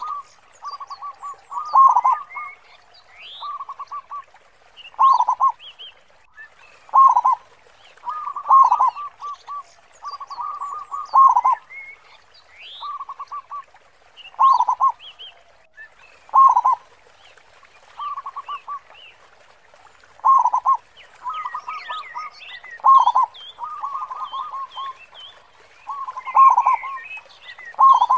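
Zebra dove (local perkutut) cooing, repeating its song phrase about every two seconds: a quick run of short notes ending in a louder one. Small birds chirp faintly and higher-pitched behind it.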